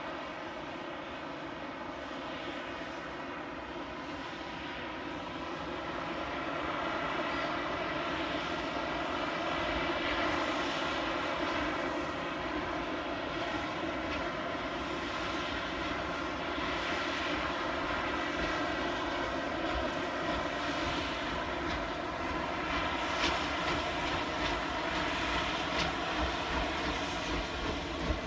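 An approaching train, a steady drone with several tones that grows gradually louder, with faint regular beats coming in near the end.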